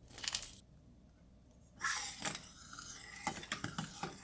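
Kitchen utensils scraping and clinking against a metal pan: a short scrape at the start, then about two seconds of scraping with a few light clicks near the end.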